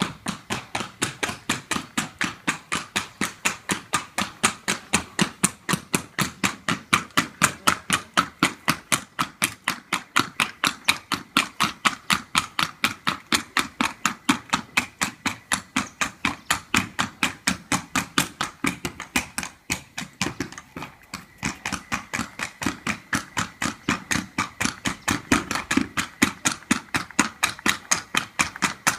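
A horse's hoofbeats on hard ground, a steady rhythm of sharp strikes at about four a second, with a short break about twenty seconds in.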